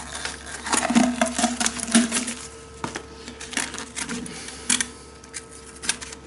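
Scattered light clicks and knocks of parts being handled, busier in the first couple of seconds, over a faint steady hum, with a faint steady tone coming in about two and a half seconds in.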